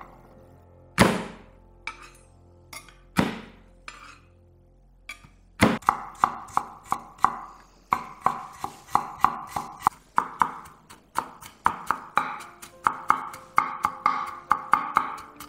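Chef's knife chopping garlic cloves on a wooden cutting board: a few separate cuts at first, then from about six seconds in fast, steady chopping at roughly three strokes a second as the garlic is minced. Soft background music plays underneath.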